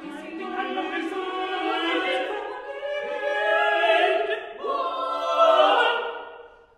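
Eight-voice a cappella vocal ensemble singing overlapping held notes with some gliding pitches in a contemporary piece, swelling twice and then fading away near the end.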